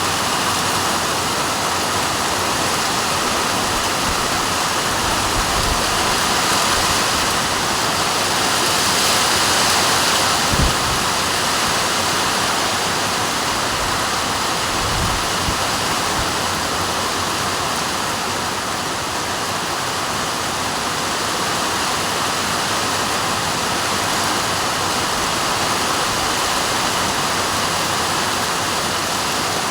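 Heavy rain pouring down in a dense, steady hiss, with one brief low thud about ten seconds in.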